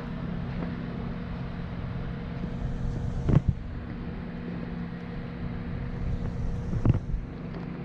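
Vehicle engine running steadily with a low hum, broken by two short thumps, one a little under halfway in and one near the end.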